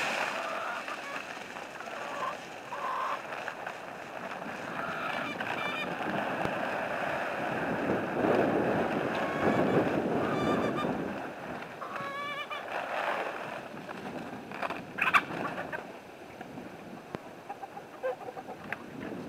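Chickens clucking and squawking in short calls, with a rush of poultry feed being poured from a bag into a metal can for a few seconds in the middle. A sharp knock near three-quarters of the way through.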